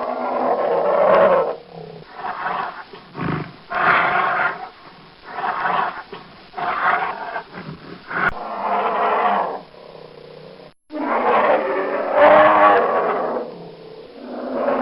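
Bear growling and roaring in a series of calls, each a second or so long. There is a brief dead gap a little before eleven seconds in, after which the calls resume.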